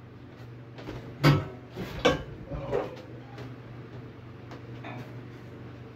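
A few knocks and clatters of a power tool and objects being handled on a workbench, the loudest about a second in and a second one shortly after, then a few small clicks, over a steady low hum.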